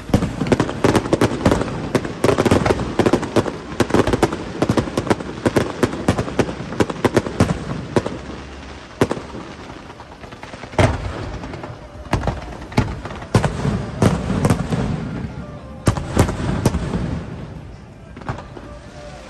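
Fireworks display: rapid, dense crackling bursts and bangs, thickest in the first half, then thinner with a few louder booms.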